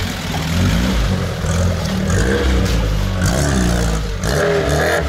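Lada Niva engine revving up and down under load as the car pulls out of a muddy hole and drives off along the track.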